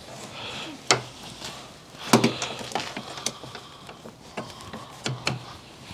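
Scattered clicks and light knocks of hands working plastic car interior trim, a few sharp taps spread irregularly over a quiet background.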